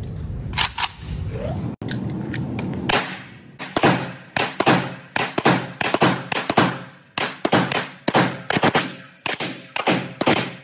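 Century Arms Draco, a 7.62x39 AK-pattern pistol, fired in a rapid string of single shots, about two to three a second, starting a few seconds in. Each sharp crack echoes off the walls of an indoor range.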